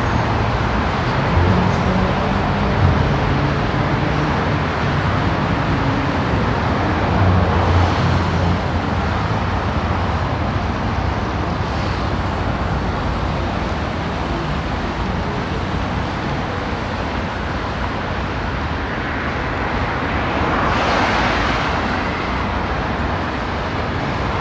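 Road traffic on a multi-lane city road, a steady rush of noise with the hum of passing car engines. One vehicle swells past near the end.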